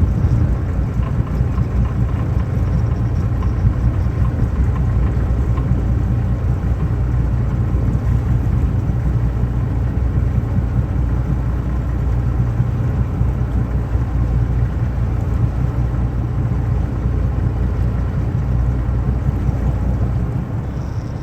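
Boat engine running steadily, a constant low drone with no change in speed, fading out at the very end.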